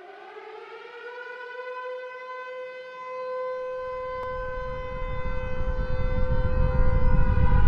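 Air-raid siren sound effect winding up in pitch, then holding a steady wail. A deep rumble swells in underneath from about halfway and grows steadily louder.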